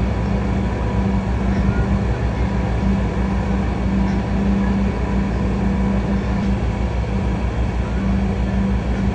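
An engine running steadily: a low, even drone with a fine regular throb.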